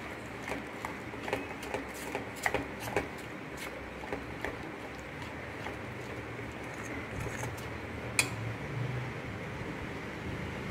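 Steel spoon beating a thick gram flour (besan) batter in a stainless steel bowl, the spoon clicking against the bowl's sides. The clicks come thick and fast for the first few seconds, then thin out, with one sharper click later on.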